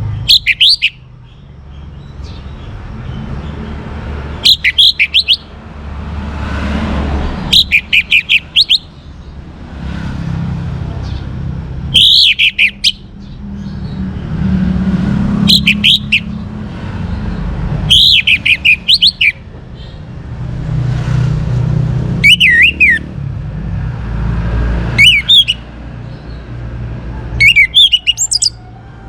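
Young orange-headed thrush singing loud, short phrases of quick high notes, one phrase every three to four seconds, over a low background rumble.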